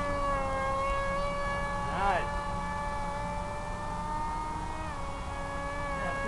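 Electric motor and propeller of an FPV flying wing whining at a steady pitch in flight. There is a short warble about two seconds in, and the pitch drops slightly near five seconds as the throttle eases.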